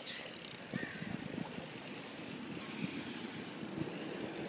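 Steady rush of wind buffeting a handheld phone's microphone while riding a bicycle along the street, with faint road noise under it.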